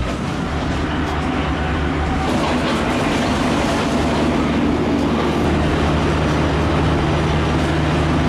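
Mini excavator's diesel engine running steadily as the machine drives forward on its rubber tracks.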